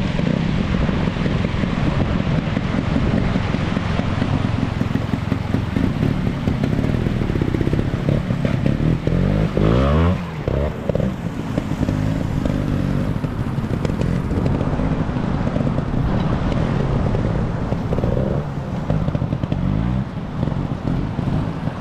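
A Bultaco trials motorcycle's two-stroke single-cylinder engine running at low revs as it picks through a rushing stream, revving up about halfway through. The noise of running water and wind sits underneath.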